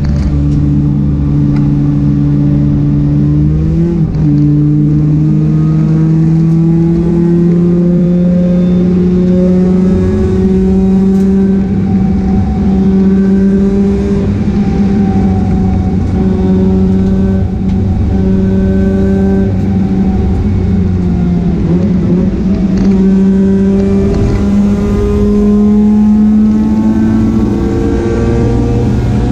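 Mazda RX-8 race car's engine running hard at speed, its pitch climbing slowly and steadily over many seconds, with a brief blip about four seconds in and a change in pitch near the end.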